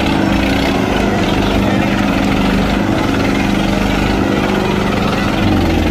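Sonalika tractor's diesel engine running hard under heavy load in a tug-of-war pull, a steady, loud labouring note whose pitch shifts slightly near the end.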